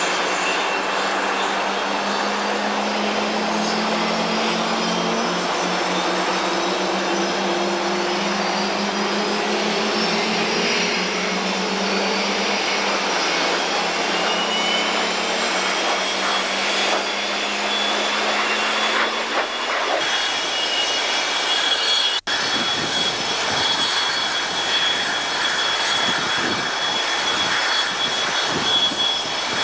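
Jet aircraft engines running loud and steady with a high turbine whine, over a lower hum that fades out about 20 seconds in. The sound drops out for an instant about 22 seconds in.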